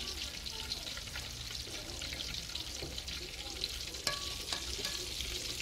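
Chicken pieces deep-frying in a pot of hot oil: a steady sizzle with fine scattered crackles. A single light clink about four seconds in.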